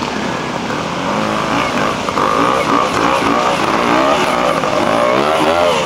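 BSA Bantam's single-cylinder two-stroke engine revving up and down again and again as the rider works it through a rocky stream bed, over the rush of the flowing water.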